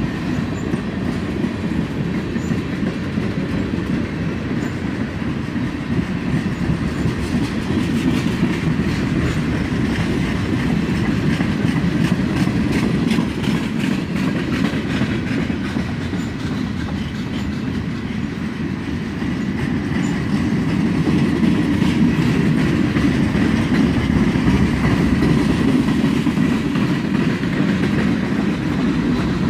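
Freight cars of a slow-moving CSX train rolling past, their wheels clicking steadily over the rail joints in a continuous rumble that swells a little in the second half.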